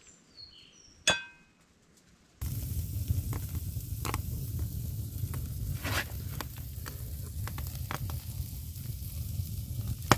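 A single ringing clink about a second in. Then, from about two and a half seconds, a steak sizzling on a wire grill over an open wood fire, with the fire crackling and popping.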